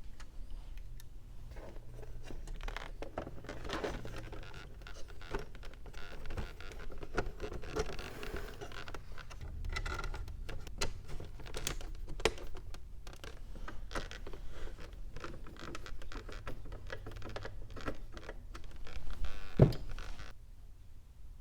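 Hands fitting the rebuilt C3 Corvette HVAC control panel into the console: irregular plastic clicks, taps and scrapes. A louder knock comes near the end, and then the handling stops.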